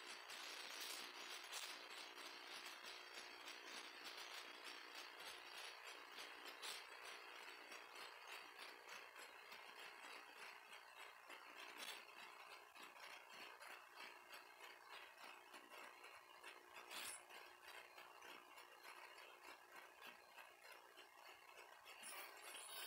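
Near silence: faint room tone with a steady hiss and a low hum, broken by a few soft clicks.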